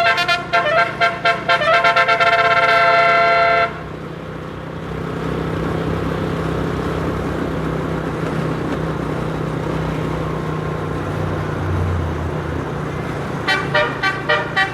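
Bus 'telolet' multi-tone air horn playing a quick melody of rapid notes that cuts off suddenly about four seconds in. Steady engine and road noise follows, and the horn melody starts again near the end.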